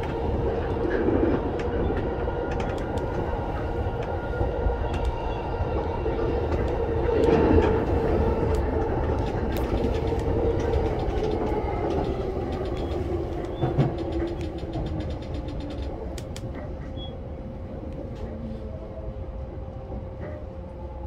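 Electric commuter train running on the rails, with wheel and rail-joint clatter and a motor whine that slides down in pitch. The sound grows quieter through the second half as the train slows.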